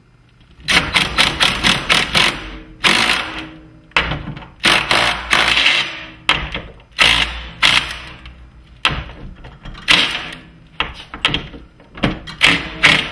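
Cordless impact driver driving a screw into a wooden door jamb, in a string of short bursts of rapid hammering about a second long, with brief pauses between.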